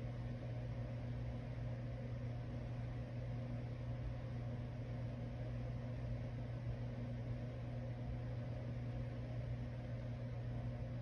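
Small electric desk fan running with a steady low hum.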